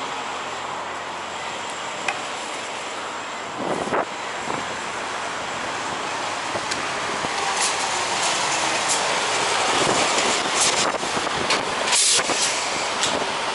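Steady noise of semi trucks idling and moving around a truck-stop fuel island. It grows louder in the second half, with a knock about four seconds in and a run of sharp clicks and clatters later on.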